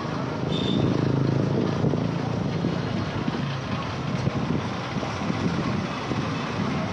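Engine of a moving vehicle running steadily amid street traffic noise, a low drone that swells about a second in, with a brief high-pitched tone about half a second in.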